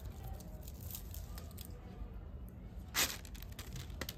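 Thin plastic sheet crinkling and rustling under hands as dough is handled and sliced almonds are dropped onto it, with one sharp crackle about three seconds in.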